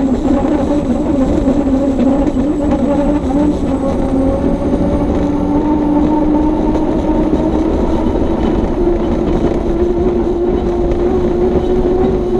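Unlimited hydroplane's Lycoming T55 gas-turbine engine running hard, heard from inside the cockpit. Its loud, steady tone climbs slowly in pitch as the boat gains speed, over a rough low rumble.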